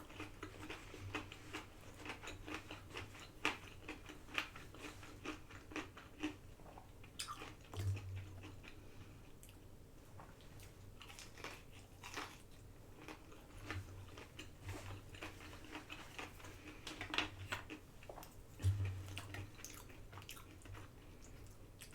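A person chewing food close to the microphone: a run of short, crisp bites and wet mouth clicks, thinning out for a few seconds in the middle before picking up again.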